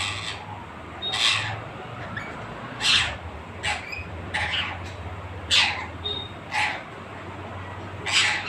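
Pet parrot giving a series of short, harsh squawks, roughly one a second, over a steady low hum.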